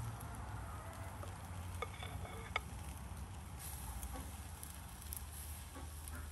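Pancake batter sizzling as it is ladled into a hot oiled frying pan, over a steady low rumble, with a couple of light sharp clicks about two seconds in.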